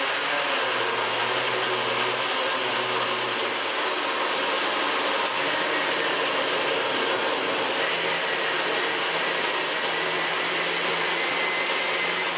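Countertop blender motor running steadily at full speed, puréeing a jar packed with tomatoes, cucumber, peppers and tomato juice. Its low hum rises slightly in pitch around halfway through.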